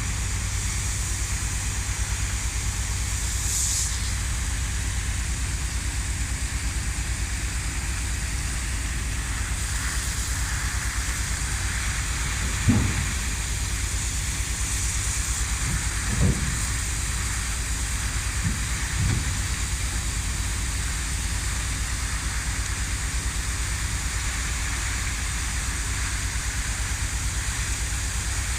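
A steady low mechanical hum under a continuous hiss, with a few short low thumps about halfway through.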